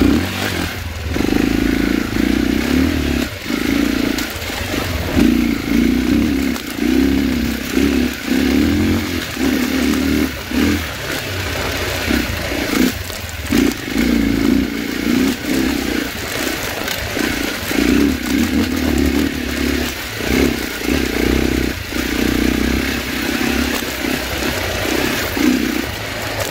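Dirt bike engine running on a rocky trail, the throttle opened and closed over and over, swelling and dropping every second or so as the bike picks its way over rock and sand, with clatter from the bike and tyres over the rough ground.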